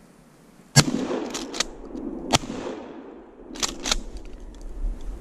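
Two shotgun shots about a second and a half apart, each a sharp crack with a ringing tail, the first the loudest; short clicks come a moment after each shot.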